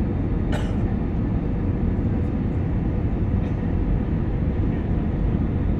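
Steady low rumble of an airliner's engines and airflow heard inside the passenger cabin during the descent to landing, with a brief click about half a second in.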